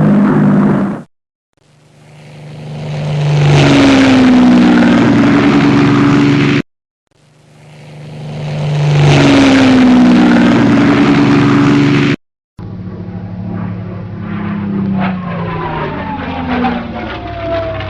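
A series of separate airplane sound-effect clips with brief silences between them: twice, an aircraft engine swells in and its pitch drops as it passes, then a duller recording of an aircraft engine running with a slowly falling whine.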